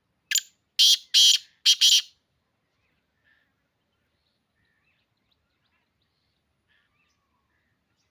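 Black francolin calling: a quick phrase of four loud, rasping notes lasting about two seconds. Faint chirps of other birds follow.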